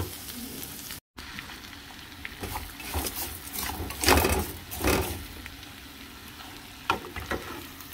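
Sliced onions and raw liver sizzling in oil in a frying pan, with a few brief knocks and clicks, the loudest about four seconds in. The sound cuts out briefly about a second in.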